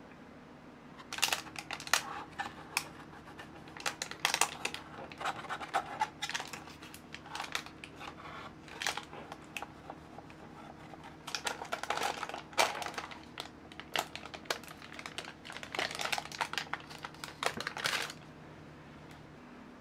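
Parchment paper crinkling and rustling in irregular bursts, with a knife scraping along the inside of a metal baking pan, as a baked brownie is loosened and lifted out on its paper liner. The sounds stop about two seconds before the end, leaving a faint steady hum.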